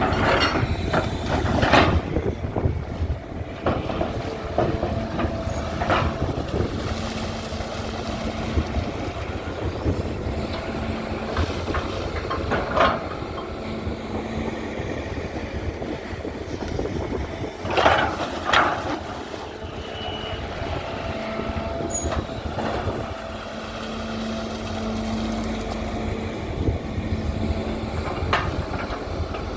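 Excavator's diesel engine running steadily under hydraulic work, with a steady low tone that comes and goes. It is broken by a handful of sharp knocks or clanks as the machine digs and lifts.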